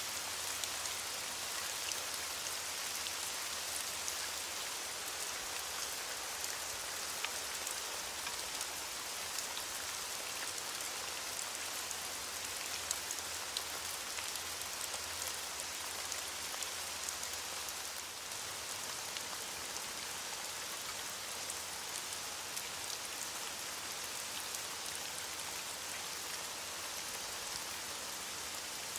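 Steady heavy rain: an even hiss of falling rain with many small sharp drop ticks scattered through it.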